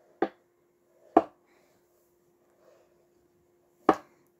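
Three sharp knocks and taps of hairbrushes being handled while a dog is groomed: one about a quarter second in, one just after a second, and one near the end.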